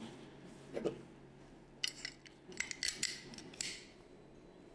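Laugo Alien pistol parts clicking and sliding as they are fitted back together during reassembly: a soft knock about a second in, then a run of sharp metallic clicks and scrapes between about two and four seconds in.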